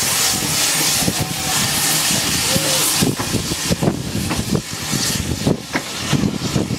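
Steam-hauled passenger train pulling slowly out: a loud, steady hiss of steam at first, then irregular knocks and clicks from the coaches rolling past.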